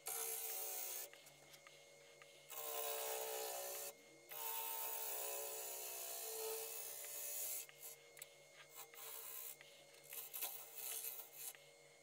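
Wood lathe spinning an English walnut blank while a gouge cuts it, a hissing shaving sound in stretches of one to three seconds, then shorter, choppier cuts in the last few seconds. A steady low motor hum runs underneath.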